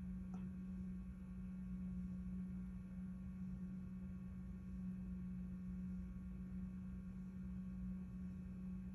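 A steady low electrical hum with fainter steady tones above it and no change in level, and one faint tick shortly after the start.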